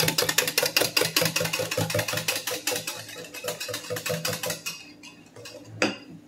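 Wire whisk beating cold milk and cornstarch in a glass measuring cup: a rapid clatter of the wires against the glass that thins out and stops about four seconds in. A single knock follows near the end.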